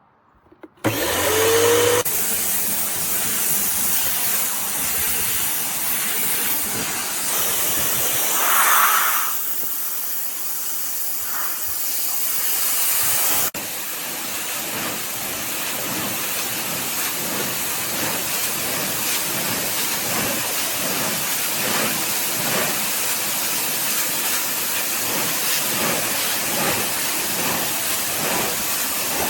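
QSMYOYE 2200 W electric pressure washer spraying its high-pressure water jet with a loud, steady hiss. It starts suddenly about a second in, with a brief rising whine as it kicks in.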